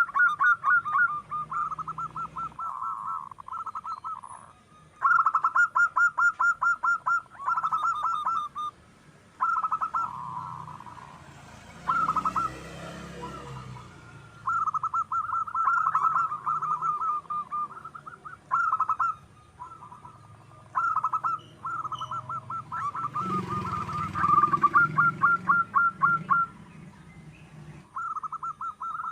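Zebra doves (perkutut) calling, each phrase a quick run of staccato coos, repeated phrase after phrase with short pauses between.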